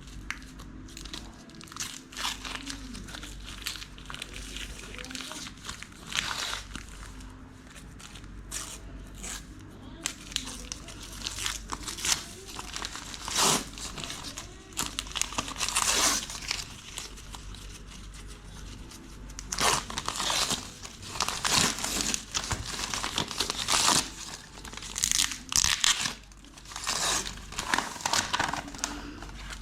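Parcel packaging crinkling and tearing as it is unwrapped by hand, in irregular bursts that grow busier and louder in the second half.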